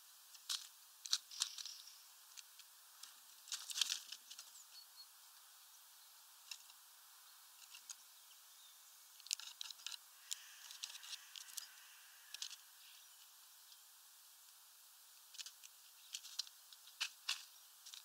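Birds pecking at sunflower seeds and husks on a feeder tray: irregular sharp taps and clicks, some coming in quick clusters, over a faint steady hiss.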